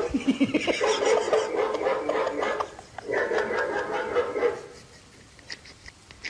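Frightened yelling and shrieking in two long outbursts.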